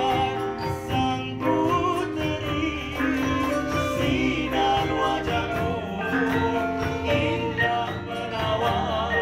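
Live Malay gamelan ensemble playing with electric guitars and drums: struck bronze gong-chimes and metallophones ringing over a regular drum pulse, with men's voices singing a wavering melody into microphones.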